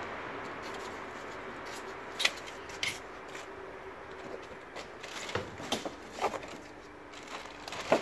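Scattered sharp crackles and clicks of plastic wrapping being handled and pulled about, about half a dozen in all, the loudest about two seconds in and at the very end, over a faint steady hum.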